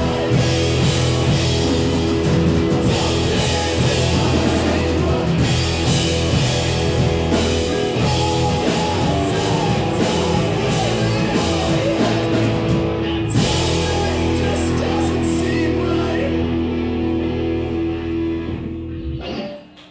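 Live punk rock band playing loud, with distorted electric guitars, bass and a drum kit crashing cymbals. About two-thirds through the cymbals stop and the guitars ring on held chords, then the band stops together shortly before the end, ending the song.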